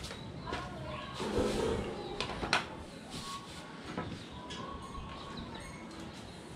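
Loose wooden planks being handled and set down, giving a few scattered knocks and clicks over a low steady hum.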